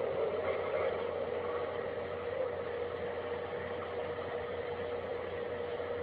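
A steady drone holding one mid-pitched tone over a hiss. It is one of the unexplained 'strange sounds' heard in the sky in late 2011 and early 2012, of unknown origin.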